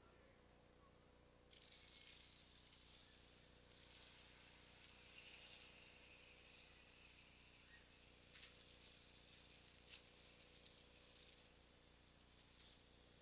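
Faint, irregular hissing rustles, each lasting about a second, starting about a second and a half in, over a faint steady hum.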